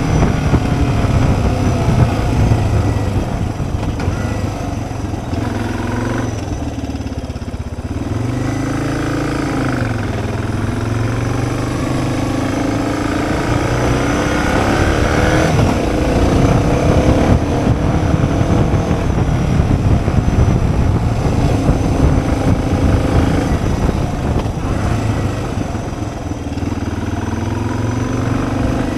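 Suzuki DR650 single-cylinder engine running on the move, its pitch rising and falling as the throttle and gears change, over a steady low rumble.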